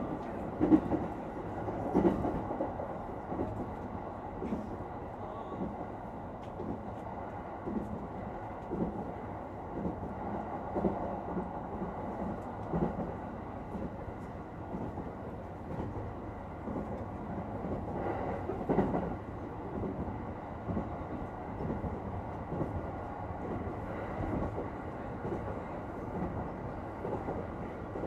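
Cabin ambience of a quiet commuter electric train: a steady low rumble and hum with irregular soft knocks and rattles, and a brief louder swell about two-thirds of the way through.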